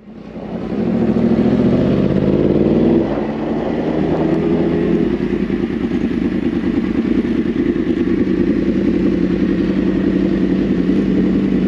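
Yamaha MT-10's crossplane inline-four engine, fading in and rising in pitch as it accelerates for about three seconds, then running at a steady, pulsing note.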